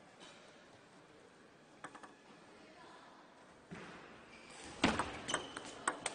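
Table tennis ball knocking off rackets and table in a fast rally: several sharp, hollow clicks at uneven intervals in the last second and a half. A few lighter ticks come about two seconds in.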